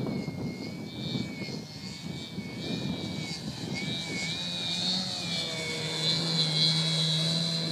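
Radio-controlled Funtana aerobatic model airplane's motor and propeller buzzing in flight. Its pitch wavers with the throttle, and it grows louder in the last few seconds as the plane makes a low pass.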